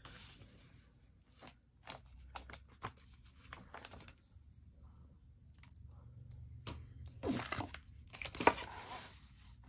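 Paper handling: scattered light taps and rustles of sticker sheets and planner pages, then two longer crinkling rustles near the end, the second the loudest.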